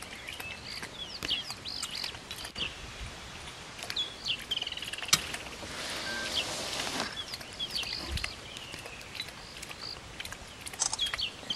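Small birds chirping repeatedly in short, quick calls, with scattered soft clicks and wet lapping from a spotted hyena drinking from a muddy puddle. A stretch of hiss comes in about halfway through.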